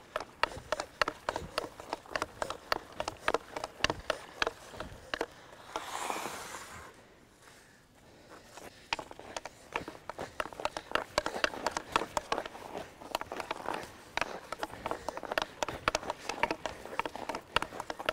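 Hockey stick blade tapping a puck back and forth while skating, in quick irregular clicks several times a second. The clicks thin out briefly near the middle. About six seconds in there is a short scraping hiss of skate blades on the ice.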